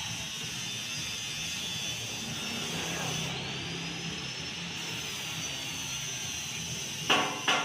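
A steady mechanical hiss and hum, then near the end sharp repeated knocks begin, about three a second, typical of hammer blows.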